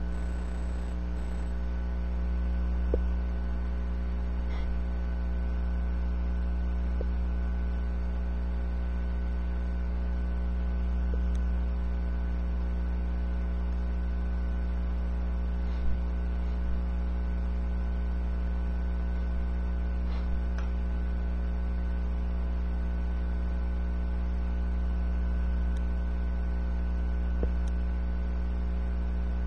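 Steady electrical mains hum with a stack of fainter, higher steady tones above it. A few faint clicks are scattered through it.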